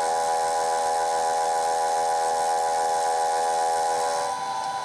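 Vertical milling machine cutting metal with a large end mill: a loud, steady whine of several fixed tones over the hiss of the cut. Some of the lower tones drop away near the end.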